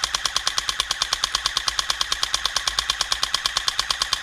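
Airsoft rifle firing one long full-auto burst close by, about ten shots a second, stopping abruptly at the end.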